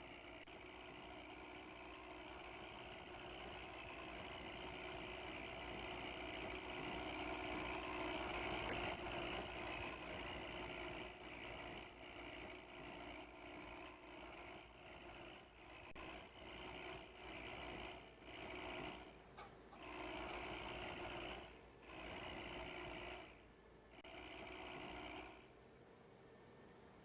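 Bus engine running under load with a snoring engine note ("ngorok"), swelling louder over the first several seconds. In the second half the note repeatedly cuts out and comes back in short spells, then drops away near the end.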